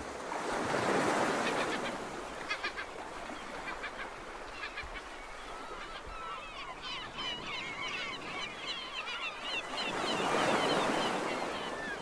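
Birds honking and calling over two swells of rushing noise, one about a second in and one near the end.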